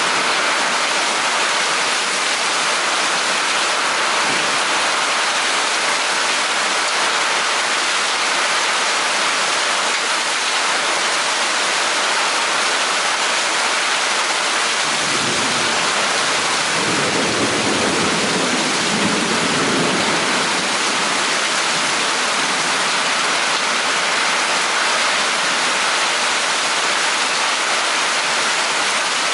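Steady rain pouring down during a thunderstorm, an even hiss without a break. Just past halfway, a low rumble of thunder rolls for about five seconds.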